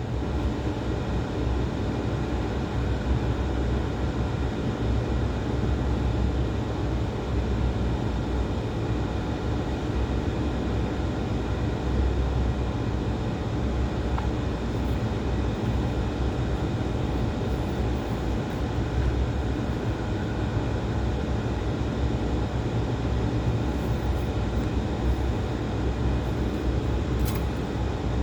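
A steady low mechanical rumble with an even hiss above it, unchanging throughout.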